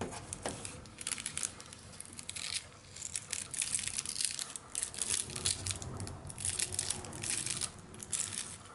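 Clear plastic protective film crinkling in irregular bursts as it is peeled off the LED light bar of a plastic grille.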